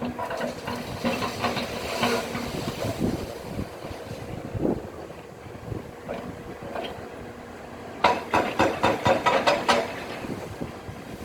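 Demolition machinery at work: mechanical clanking and knocking over a steady running noise, with a rapid run of sharp strikes lasting about two seconds near the end.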